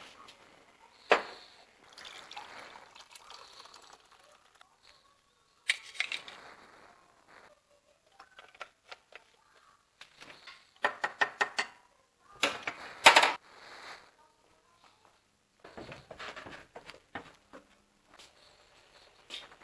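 Handling noises at a kitchen counter: scattered clicks and knocks with stretches of rustling. A quick run of clicks comes about two-thirds of the way through, followed at once by the loudest clatter.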